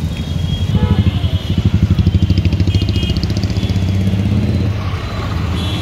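A motor vehicle engine running close by with a steady low hum. It throbs faster and louder for a few seconds in the middle, then settles back.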